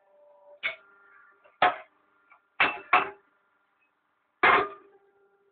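Five sharp clacks of hard objects knocking together, each ringing briefly, the third and fourth close together.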